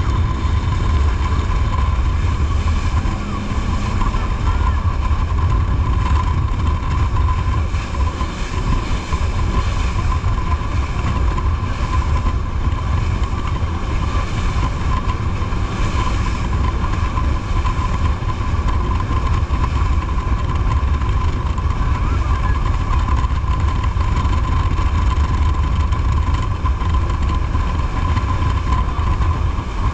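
Jet boat under way, its engine and water jet running steadily: a heavy low rumble with a steady high whine over a constant rush of noise.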